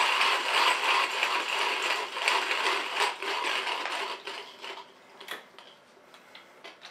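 Timemore Chestnut C2 hand coffee grinder being cranked, its conical burrs crunching through whole coffee beans in a fast, continuous rattle. The grinding fades out about two thirds of the way through, leaving a few light clicks.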